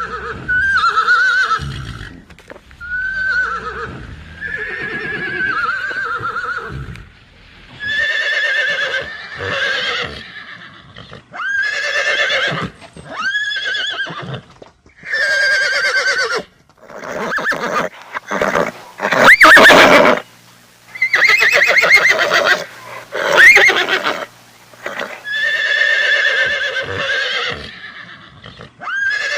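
Horse neighing and whinnying: over a dozen separate calls with short gaps between them, some brief and some drawn out with wavering, falling pitch. The loudest calls come a little past the middle.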